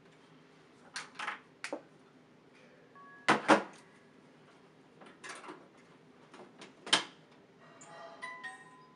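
Irregular clicks and knocks from handling things at a desk, several quiet and a few sharp louder ones, with a few short electronic-sounding tones near the end.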